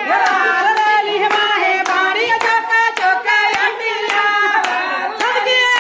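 Women singing a Punjabi folk song with long held notes, over steady handclaps about two to three a second.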